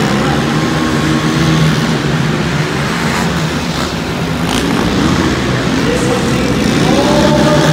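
Several racing quad ATV engines running together, their pitches wavering as riders throttle on and off. One engine revs upward near the end.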